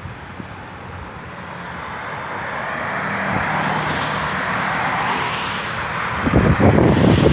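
A car driving past on a wet road, its tyres hissing on the water as the sound swells slowly and then eases off. Wind buffets the microphone in rough gusts near the end.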